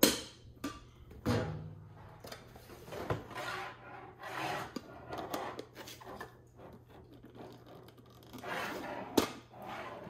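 Plastic water tank of a Nespresso Essenza Mini capsule machine being handled and worked loose: plastic rubbing and scraping against plastic, with several sharp clicks and knocks.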